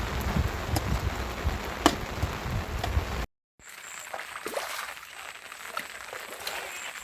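Heavy rain falling, a dense hiss with low rumbling underneath, which cuts off abruptly about three seconds in. After a brief silence, a quieter stretch of scattered drips and ticks follows.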